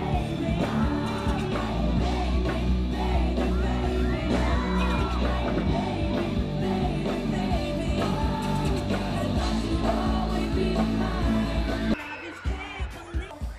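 Live pop performance: a male lead vocal singing over a band with heavy bass, with fans yelling. About twelve seconds in the sound cuts abruptly to quieter, sparser music.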